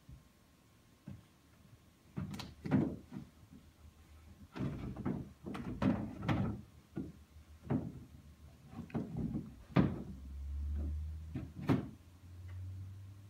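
Irregular knocks and thumps from a toddler bumping about in a plastic play castle, starting about two seconds in, some in quick clusters.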